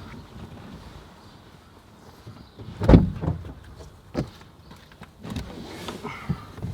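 Several dull thumps and knocks as a dash mat is handled and fitted onto a car's dashboard, the loudest about three seconds in, with smaller knocks after it.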